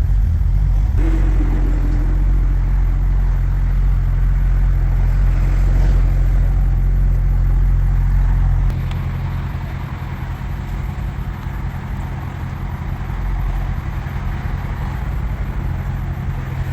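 2011 BMW 328i's straight-six engine idling, a steady low hum that drops in level about halfway through.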